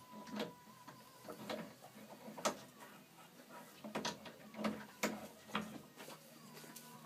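Metal stable-door bolt clicking and rattling as a horse works at it with its lips and muzzle to slide it open. Irregular sharp clicks, about seven of them, the loudest about two and a half seconds in.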